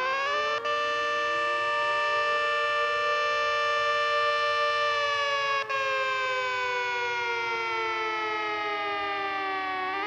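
Century 40V2T electromechanical siren sounding a two-tone chord. It finishes winding up about half a second in, holds a steady pitch for about four seconds, slowly winds down, then starts rising again at the very end.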